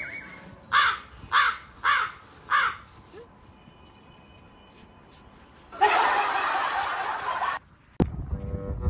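A person laughing in four short bursts, "ha-ha-ha-ha", about half a second apart. A harsh noisy burst lasting under two seconds follows later, and music with a steady beat starts near the end.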